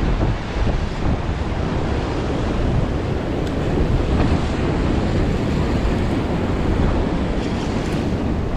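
Strong wind buffeting the microphone over waves washing in, a steady rushing noise heaviest in the low end.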